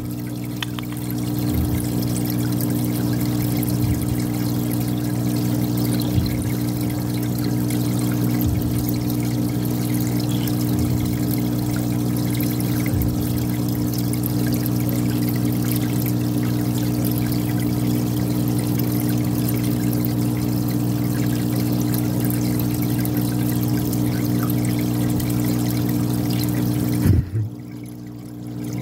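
An aquarium pump runs with a steady electric hum, and water trickles and splashes into the fish tub. Near the end the water sound drops out for about a second and a half after a soft knock, while the hum carries on.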